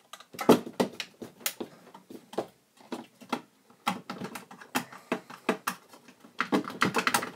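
Irregular clicks and knocks of metal and plastic as the old riveted-in fan, its rivets just drilled out, is pushed and worked loose from the Amiga 2000's steel power supply case, with a dense run of clatter near the end.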